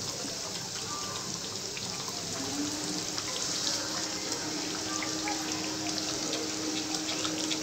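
Thick masala gravy sizzling in a kadhai on high flame as fried chicken pieces are laid into it: a steady hiss with small crackles throughout. A faint steady hum joins about two and a half seconds in.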